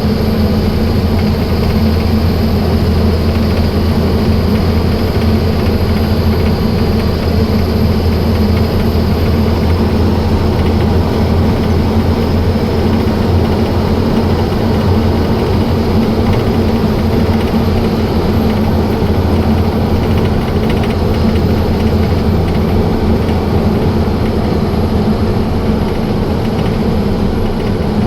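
Heavy truck's diesel engine running steadily on the road, a deep, even drone that holds unchanged throughout.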